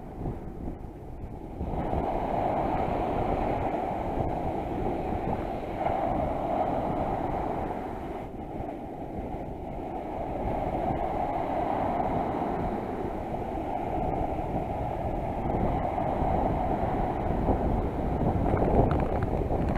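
Sea surf washing on the shore, with wind buffeting the microphone; a steady rushing noise that swells and eases, dipping twice.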